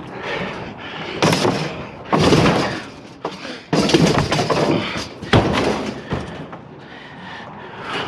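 Scrap metal being handled and loaded onto a trailer: a run of loud clattering, scraping noises, each lasting about half a second to a second, with a sharp bang about five and a half seconds in.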